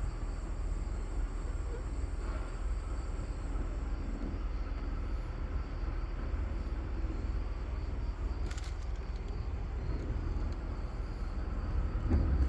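Steady low outdoor background rumble with no distinct events, and a faint even hiss above it.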